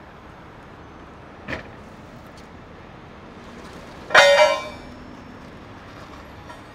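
A sharp, loud metallic clang about four seconds in, ringing briefly, as the rigged box truck is shoved and shifts on its wheels. It sits over a steady low background rumble, with a small click earlier on.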